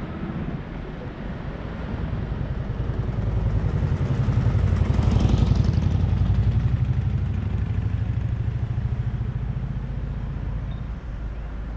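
Vehicle engine running, with a low rapid pulsing that swells louder around the middle and then eases off.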